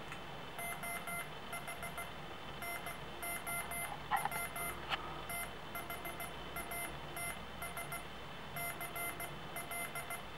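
Tenth Doctor's sonic screwdriver universal remote playing an electronic sound effect from its small speaker: rapid beeps in short clusters, repeating over and over. This is the effect the toy gives when its button is pressed three times in effects mode.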